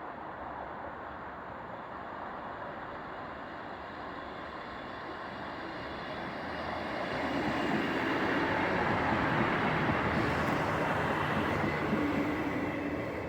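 British Rail Class 158 diesel multiple unit running on the line, its engine and wheel noise growing louder from about halfway through as it draws near, loudest a few seconds before the end and then easing slightly.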